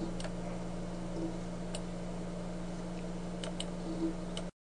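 Steady low electrical hum and hiss of a desktop recording setup, with a few faint, sparse clicks. The sound cuts to dead silence briefly near the end.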